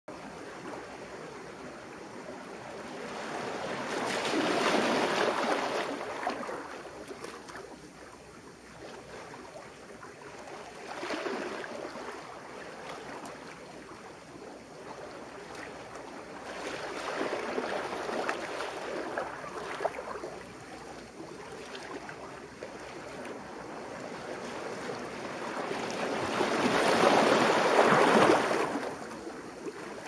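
Sea waves washing in among wet boulders on a rocky shore, a steady wash with slow surges about four seconds in, around eleven, around seventeen to nineteen, and a loudest surge near the end.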